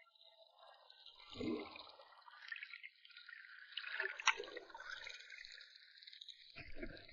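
Water gurgling and splashing, with three louder surges: about a second and a half in, just past the middle, and near the end.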